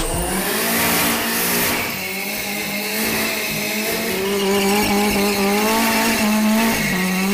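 Hyundai Genesis Coupe doing a burnout: the engine is held at high revs with a steady note while the rear tyres spin and squeal, the pitch dipping briefly and picking back up near the end.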